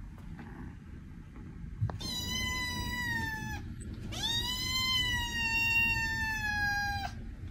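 Kitten meowing twice: a high meow of about a second and a half, then a longer one of about three seconds that rises at the start and slowly falls in pitch.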